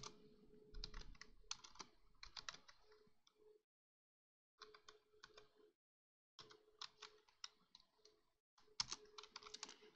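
Faint computer keyboard typing in quick bursts of keystrokes, with two brief pauses near the middle.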